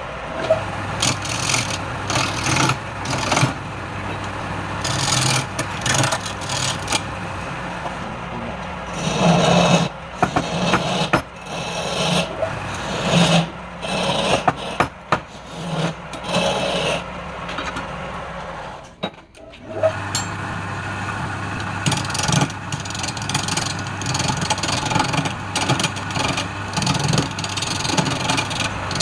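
Wood lathe running with a steady low hum while a turning tool scrapes and cuts the spinning wood in repeated passes. The sound drops out briefly about two-thirds in, then resumes.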